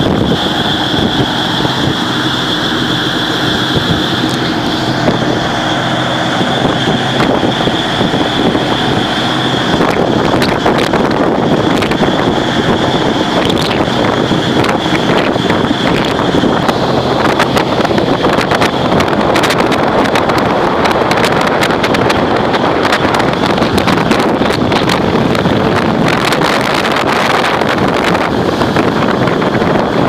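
Wind buffeting the microphone and waves rushing and breaking along a ship's hull in rough seas, with a steady low engine rumble beneath. A high steady whine heard in the first third fades out at about ten seconds, and the wind noise grows heavier after that.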